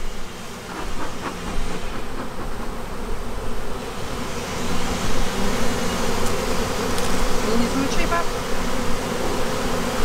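Honeybee swarm buzzing: a steady, dense hum of many bees flying and crawling at a hive entrance as the shaken-down swarm walks into the hive.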